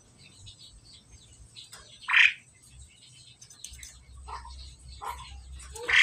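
Asian pied starlings (jalak suren) giving short harsh calls: a loud one about two seconds in, two softer ones later, and another loud one at the very end.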